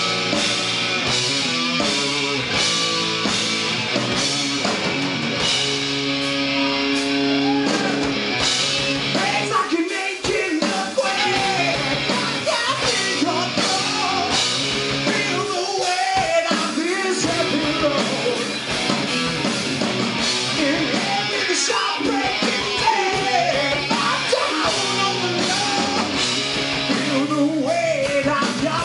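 Live rock band playing a heavy rock song: distorted electric guitars, bass and drums. Held chords at the start give way to a singer's voice over the band from about nine seconds in.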